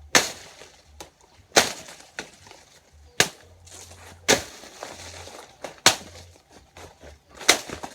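Machete chopping off banana plant leaves: six sharp whacks about a second and a half apart, with a few lighter cuts between.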